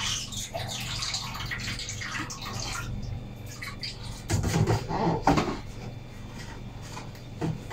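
Water sloshing and trickling in a plastic basin as mung bean sprouts are washed by hand. About four seconds in come louder splashes and knocks as the bowl of sprouts is handled over the basin.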